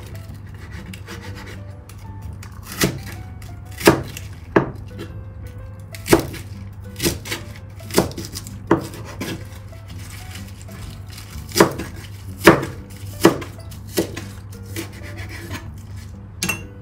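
Kitchen knife chopping napa cabbage on a plastic cutting board: about fifteen sharp knocks of the blade through the leaves onto the board, unevenly spaced, with a pause of a couple of seconds near the middle.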